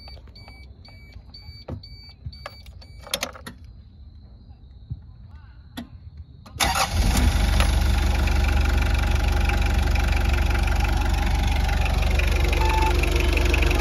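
A dashboard warning beeper beeps rapidly and a few clicks sound. About six and a half seconds in, the Mitsubishi Delica's turbo diesel engine starts quickly and settles into a loud, steady idle with a low rumble.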